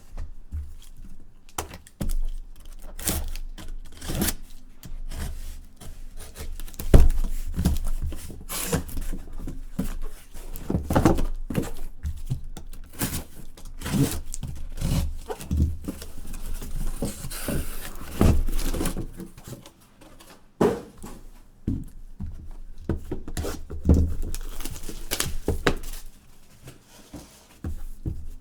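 Sealed trading-card boxes being unpacked by hand: irregular thuds and knocks as boxes are handled and set down on a table, with bursts of tearing wrap and cardboard.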